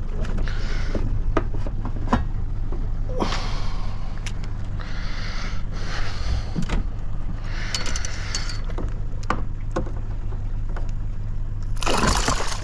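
Scattered knocks, clicks and scrapes of handling gear on a small fishing boat over a steady low hum, broken by several short rushes of noise, the loudest near the end.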